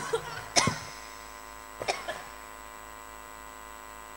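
Steady electrical mains hum from a public-address sound system, with two brief sharp sounds, a louder one about half a second in and a fainter one near two seconds.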